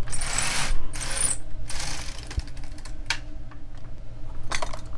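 LK 150 knitting machine carriage being pushed back and forth across the plastic needle bed, knitting rows: a rattling swish on each pass as the needles are worked, with a few sharp clicks later on.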